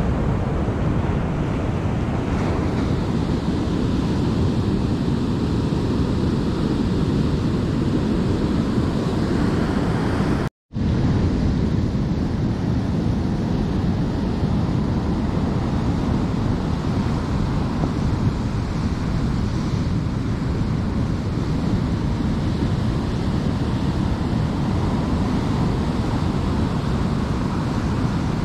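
Ocean surf washing over a rocky shore, with wind buffeting the microphone. The sound cuts out completely for a split second about ten seconds in.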